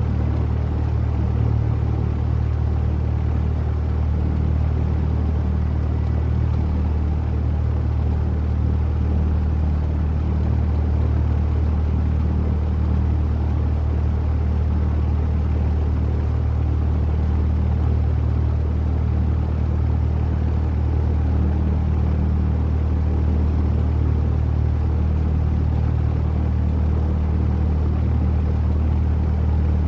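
Single-engine Cessna's piston engine and propeller idling with a steady low drone, heard from inside the cabin.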